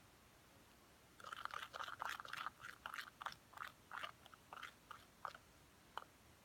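Homemade slime of glue, soap and sand being worked, giving a run of irregular crunchy, squishy crackles from about a second in that thins out to a few single clicks near the end.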